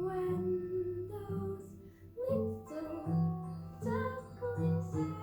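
Musical theatre number: a child singing over an instrumental accompaniment with a steady bass line.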